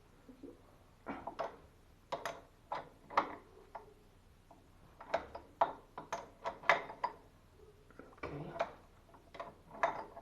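Irregular clicks and knocks of tools and valve parts being handled and worked on, some in quick clusters of two or three.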